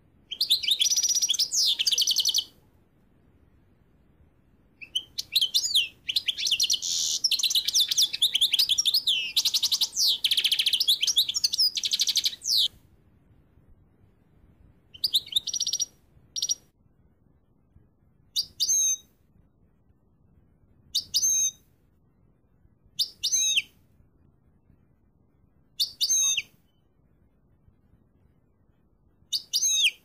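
A small finch singing fast, high twittering song, two long runs in the first half, the second about seven seconds long. Then short separate phrases every two to three seconds.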